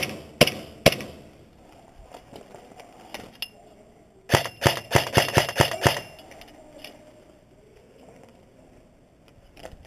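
Airsoft guns firing: three single shots about half a second apart, then, about four seconds in, a quick string of about eight shots lasting under two seconds.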